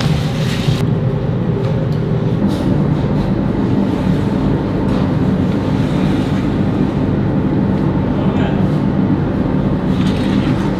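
Steady low mechanical drone of bakery machinery running, with a few faint knocks.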